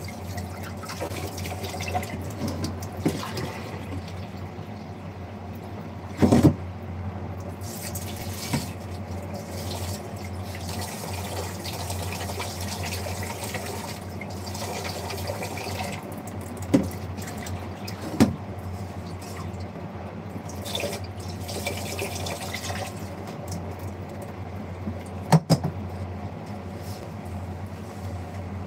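Water running into a kitchen sink over a steady low hum, with a few short knocks and clinks of kitchenware.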